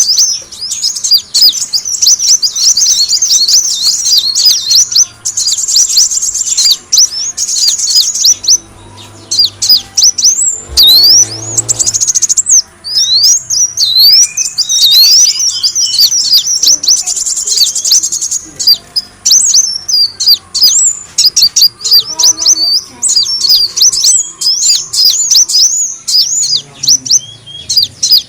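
Kolibri wulung sunbird calling in rapid, high, thin twittering chirps and short trills, with hardly a pause. It is a bird-lure call recording, used to draw the birds in.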